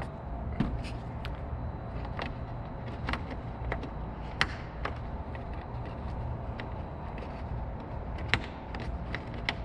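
Scattered light clicks and taps as rubber bump stops are handled and pressed into holes in a trunk lid, the loudest about four and eight seconds in, over a steady low hum.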